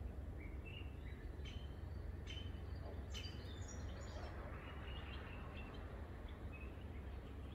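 Small birds chirping now and then, short high calls scattered through the first few seconds, over a steady low rumble.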